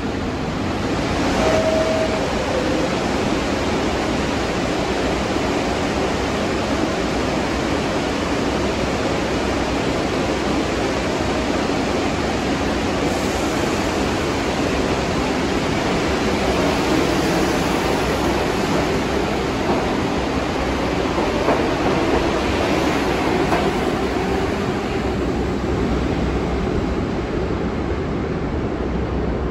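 Steady rumble of a subway station with a train standing at the platform. About a second and a half in, a short two-note descending door chime sounds.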